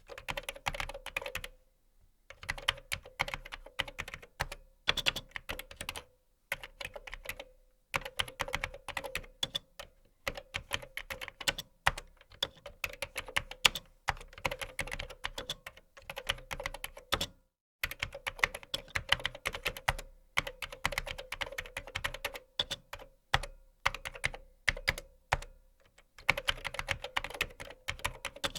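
Typing on a computer keyboard: rapid runs of key clicks several per second, broken by short pauses every few seconds.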